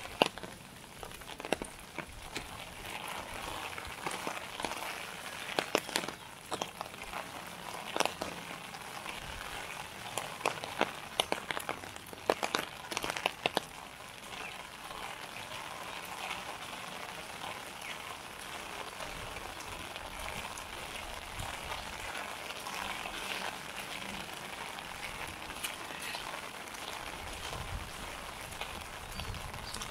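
Rain falling on wet pavement and surfaces, a steady hiss, with sharp taps and clicks through the first half.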